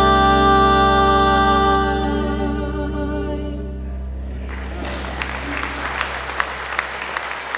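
A vocal trio of two men and a woman holds the final chord of a gospel hymn over a low, sustained instrumental backing, and the chord fades away over about four seconds. Audience applause with scattered individual claps then starts about halfway through.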